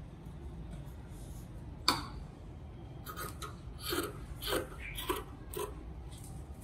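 Tailor's shears cutting through fabric: a sharp click about two seconds in, then a run of about six crisp snips over the last few seconds.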